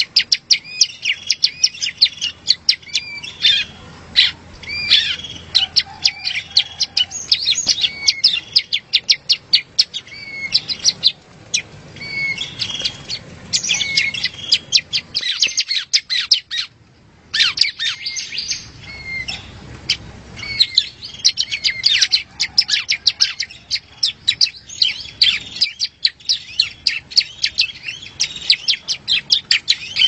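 Prenjak songbird calling: a fast, continuous chatter of sharp chips and trills with short rising whistled notes mixed in, broken by one brief pause about halfway through.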